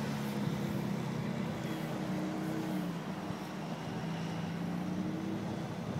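Diesel semi-truck engine running under load with a steady low hum whose pitch drifts slowly, as the truck on rubber tandem-axle tracks pulls its trailer through deep mud.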